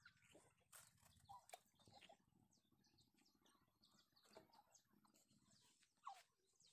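Very faint bird calls, a few short calls that bend in pitch, the clearest near the end.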